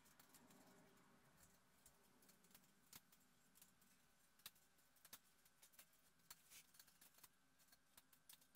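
Near silence: faint room tone with a few faint, sharp clicks.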